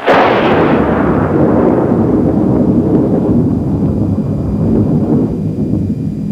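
A sharp crack followed by a long rolling rumble like a thunderclap, slowly dying away.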